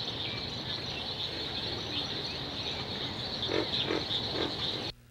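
Crickets chirping in a dense, steady high-pitched chorus, with a few short lower calls near the end.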